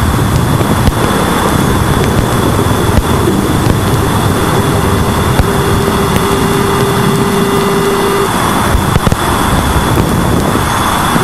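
Voyager 2 Plasma Wave Subsystem data played back as sound: a loud, dense hiss and crackle with a steady high tone throughout and a lower steady tone held from about four to eight seconds in.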